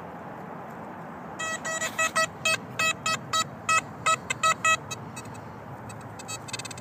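XP Deus metal detector sounding a run of short, pitched beeps, about a dozen in three seconds, as the coil sweeps back and forth over a buried non-ferrous target, which proves to be a large piece of lead. Steady rain hiss underneath.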